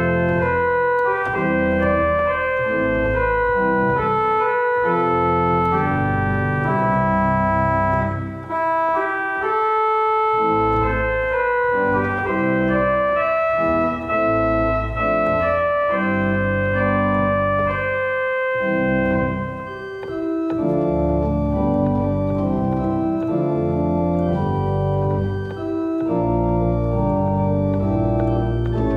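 Organ music: slow, sustained chords held over a low bass line, changing every second or two, with brief dips between phrases.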